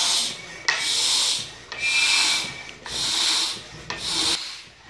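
Hand-operated bicycle floor pump inflating a latex balloon: a rushing hiss of air with each stroke, about once a second, some strokes starting with a click.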